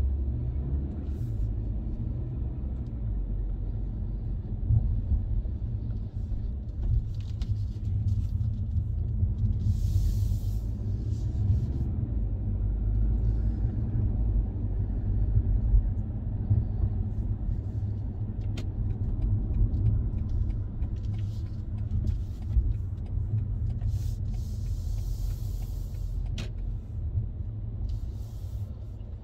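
Car driving on a road: a steady low rumble of engine and tyres, with several short bursts of hiss.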